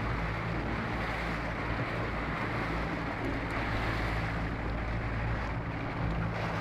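Motorboat engine running steadily, with the wash of water along the hull and wind noise on the microphone.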